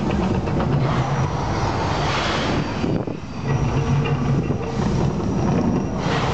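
Mirage volcano attraction erupting: a continuous deep rumble with louder rushing surges about two seconds in and again near the end, as its gas flame jets fire.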